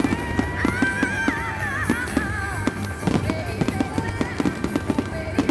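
Fireworks going off in rapid, uneven pops and crackles, many small bangs a second, with music playing over them.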